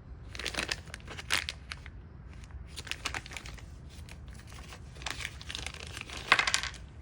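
Crinkling and rustling in three irregular bursts, the loudest near the end.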